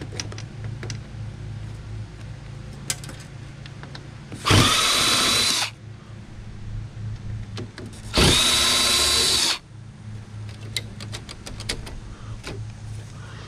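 Cordless drill-driver backing screws out of a flat-screen TV's sheet-metal back panel in two bursts of about a second each. Each burst winds up quickly to a steady whine. Light clicks and rattles of loose parts come between the bursts.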